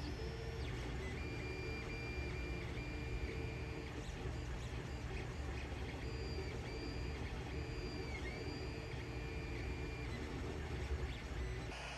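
Creality Ender 3 3D printer running a print: its stepper motors give a loud whine of high tones that cut in and out and shift pitch with each move of the head, over a steady low hum. The sound changes abruptly just before the end.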